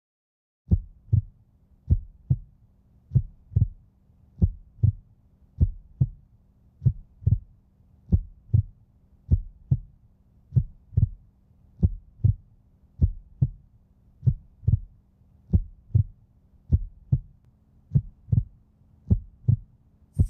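Heartbeat sound effect: slow, steady double thumps, a little under one beat a second, over a faint low hum. It starts just under a second in.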